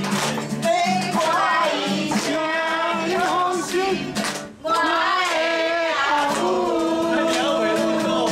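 Singing with a strummed acoustic guitar, with a brief break in the music about halfway through.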